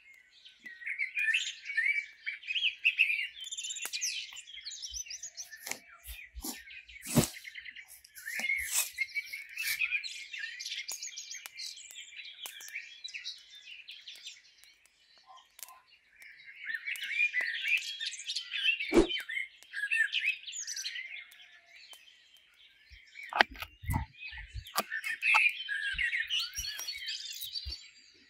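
Small songbirds chirping and singing in three long stretches, with scattered sharp clicks and a few low knocks in between.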